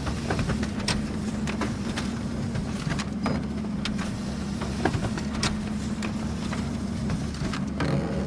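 Office printer running with a steady low hum, with irregular clicks and ticks from its paper-feed mechanism as paper goes through.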